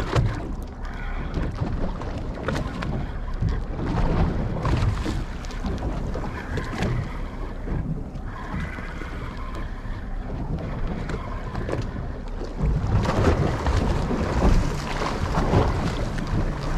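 Wind buffeting the microphone and water slapping a small fishing boat at sea, an uneven rumble with scattered knocks that grows louder about three-quarters of the way in.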